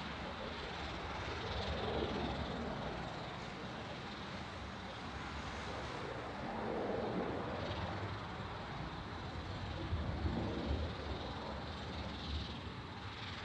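Bombardier Global 5000 business jet's twin rear-mounted Rolls-Royce BR710 turbofans at takeoff thrust as it climbs away just after liftoff: a continuous rushing rumble that swells and eases several times.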